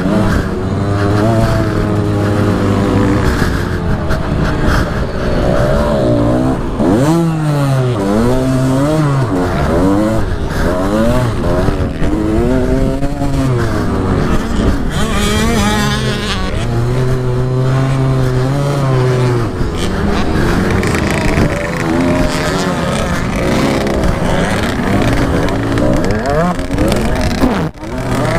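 125 cc two-stroke motocross bike engine heard from the rider's seat, revving up and dropping back again and again as the throttle is opened and closed, with wind noise over the microphone.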